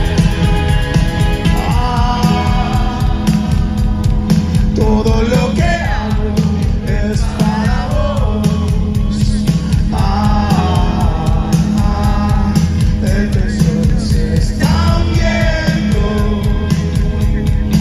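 Live rock band playing loudly, with electric guitars, bass and drums under a lead singer whose sung lines come and go with short breaks between them, heard from within the audience.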